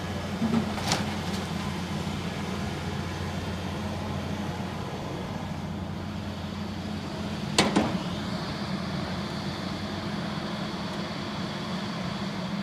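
A John Deere hydraulic excavator's diesel engine running steadily as the machine swings its boom. Two sharp clanks come through, about a second in and again near eight seconds, and a faint high whine joins after the second one.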